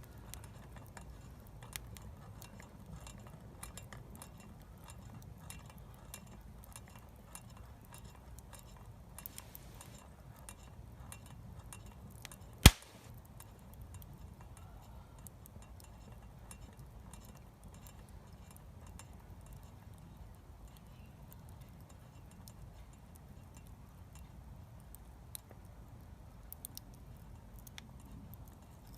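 Wood fire crackling: scattered small pops and clicks over a low steady rumble, with one sharp, loud snap about halfway through.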